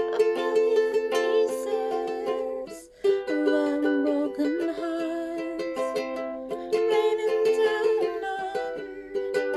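Music: chords strummed on an acoustic string instrument as song accompaniment, with a short break about three seconds in.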